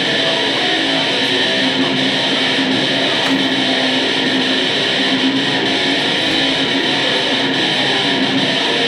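Electric guitar, a single-cutaway Les Paul-style instrument, played through an amplifier with notes and chords held and ringing at a steady level.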